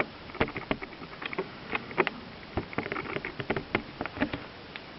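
A run of irregular light clicks and taps, a few a second, over faint background hiss.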